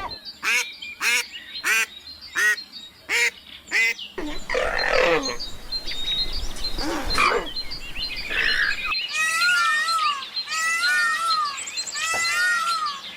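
Birds calling: a run of short, evenly spaced calls, then a few longer falling calls, then quick clusters of high chirps.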